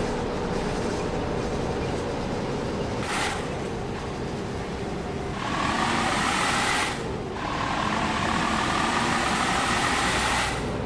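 Road traffic: vehicles running past on a road, a steady rush that swells louder twice in the second half as vehicles come closer.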